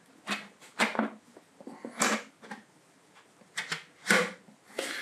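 Hard plastic pipe fittings knocking and clicking as an elbow is pushed onto a longer section of pipe: a series of short, sharp knocks, the sharpest about two seconds in.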